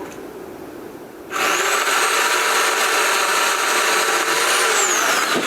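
Pole chainsaw starting up about a second in, running at a steady pitch for about three seconds, then winding down near the end.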